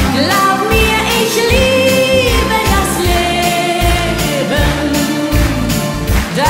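A woman singing a Schlager pop song into a microphone over a band backing with a steady beat.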